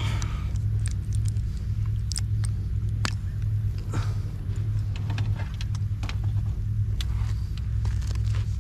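A low steady rumble, with scattered sharp crackles and clicks over it.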